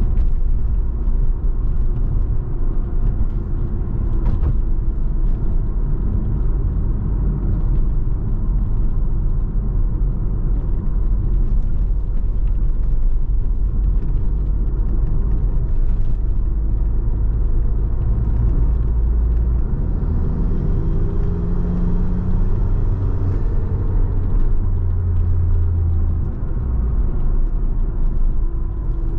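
Mercedes-AMG GLA 45's 2.0-litre turbocharged four-cylinder engine and road rumble while driving. The engine note changes about twenty seconds in.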